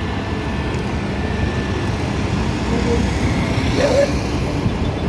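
Ola S1 electric scooter pulling away from a standstill in eco mode and speeding up. Wind rush on the microphone and road noise grow louder as it gains speed.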